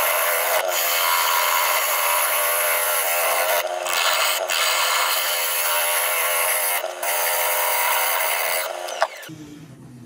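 Turning tool cutting the outside of a spinning olive ash bowl blank on a wood lathe: a loud, steady shearing hiss, broken by a few brief gaps where the tool lifts off the wood. The cutting stops abruptly about nine seconds in.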